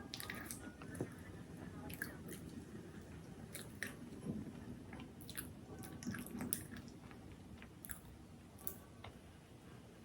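Close-miked eating: a person chewing and biting food, with irregular crisp clicks and crunches.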